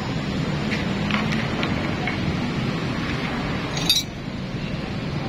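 Metal tools and engine parts clinking as they are handled: a few light clinks, then one sharp ringing clink about four seconds in, over a steady low hum.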